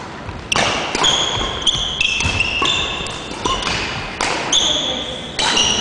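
Badminton rally: rackets hitting a shuttlecock in a quick string of sharp cracks, with sneakers squeaking on the wooden court floor between the shots.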